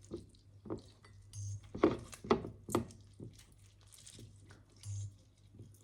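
Light knocks and clinks of kitchenware, with about five in quick succession over the first three seconds; the loudest comes about two seconds in.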